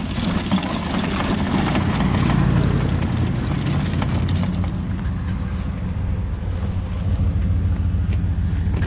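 Lawn-Boy push mower, engine off, rolled over asphalt with its wheels and loose parts rattling, over a steady low vehicle-engine hum.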